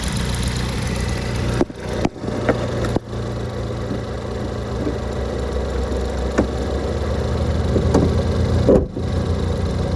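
Turbocharged Ford Focus ST engine running steadily near idle, with a few short sharp sounds and brief sudden dips in level.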